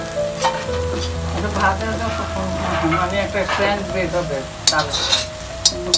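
Shidol shutki (fermented dried fish) dry-roasting in a pan, sizzling as it is stirred, with sharp taps of the spatula on the pan toward the end.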